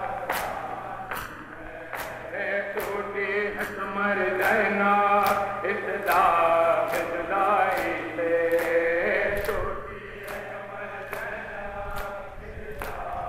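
Men chanting a nauha (Muharram lament) in unison over a PA system, with the mourners' matam beating time: open-palm chest strikes landing together about twice a second.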